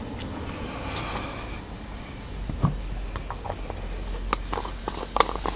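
Potassium permanganate and glycerine reacting in a pile of kindling: a faint hiss, then scattered small crackles and pops that come more often toward the end as the mixture heats up toward ignition.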